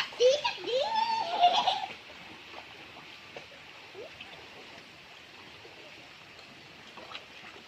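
A person laughing and giggling for about the first two seconds, then the steady rush of the waterfall's stream.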